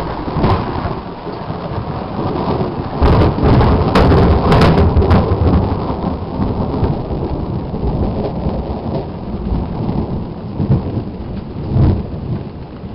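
Thunder rumbling during a storm with rain falling. The rumble swells loudest about three to five seconds in and rises again briefly near the end.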